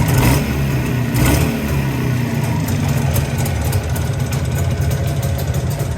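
Jawa 350 two-stroke twin-cylinder engine idling with a fast metallic knocking clatter, the 'bell tower' (kolokolnya) noise that sets in once the engine has run for a bit, with two short louder swells near the start. The owner suspects the piston assembly (wrong piston clearance) and possibly the piston pin, worst on the right cylinder.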